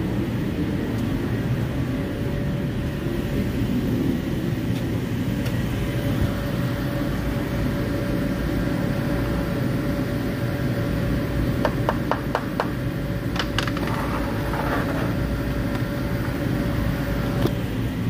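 Steady mechanical hum of the shop's background noise, with a quick run of about five light clicks and knocks about twelve seconds in and two more soon after, as things are handled.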